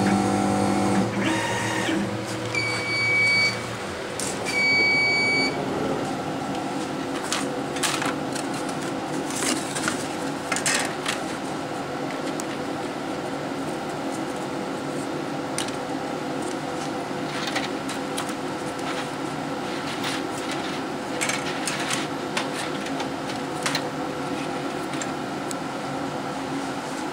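Laser cutter cutting thin wood veneer, its motion stopping about a second in, followed by two long electronic beeps about two seconds apart. A steady hum carries on while the cut veneer pieces are lifted off the bed with light clicks and rattles.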